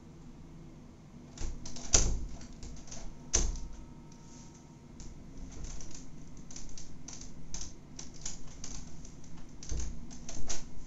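A run of irregular sharp taps and clicks, sparse at first and then quick and clustered like typing. A few heavier knocks stand out, at about two seconds, at three and a half seconds and near the end.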